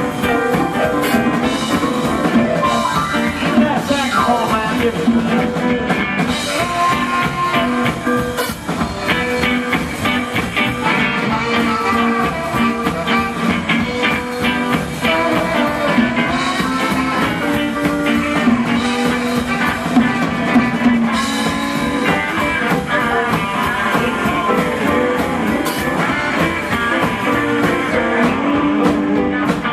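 Live rock and roll band playing a blues-based tune, with electric guitar over a steady drum-kit beat.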